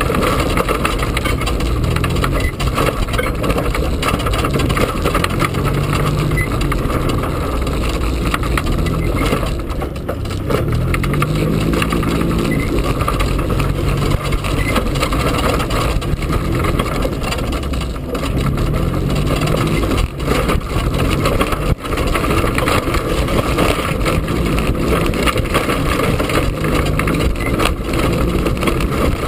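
EZGO golf cart driving over rough woodland ground, its motor running steadily, with the pitch rising and falling several times as it speeds up and slows.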